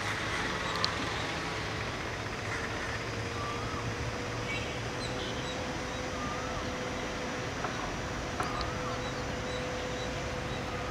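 Distant WDP4B diesel-electric locomotive approaching, its engine a low, steady rumble with a thin steady tone over it. Short bird chirps come several times over the top.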